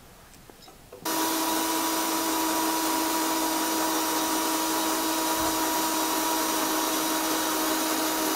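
Cordless drill-driver running at a steady speed with a steady whine as its metal drill bit bores through the heatsink of a rectifier-regulator. It starts suddenly about a second in.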